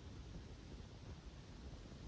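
Faint room noise: a low, uneven rumble under a soft hiss, with no distinct events.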